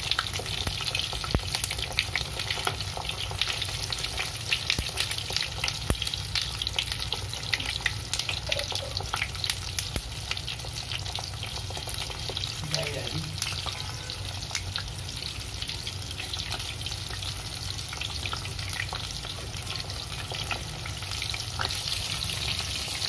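Sesame-coated chicken mince patties deep-frying in hot oil: a steady sizzle full of small crackling pops, the sesame seeds popping in the oil.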